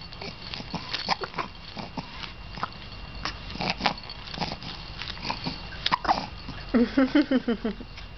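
A baby hiccupping: short, sudden hics repeating irregularly, about once a second. Near the end comes a brief run of quick laughing syllables.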